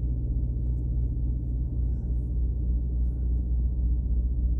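Steady low rumble and hum, even throughout, with nothing else standing out.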